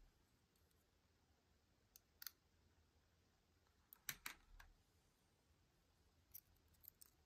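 Faint, scattered clicks and taps of a metal lock pick and tension wrench on a Harry Bow Chicane challenge lock: the pick set down on and lifted from the desk, then going back into the keyway. A few isolated clicks, the loudest cluster about four seconds in.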